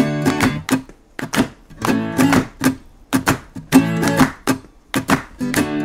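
Acoustic guitar strummed in a steady rhythm: the instrumental break of a jingle.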